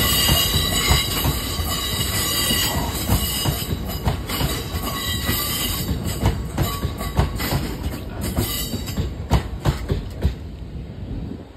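Freight train of bogie tank wagons rolling past. Wheels squeal on the curving track at first, then give a run of clicks and clunks over rail joints. The sound fades as the last wagon goes by near the end.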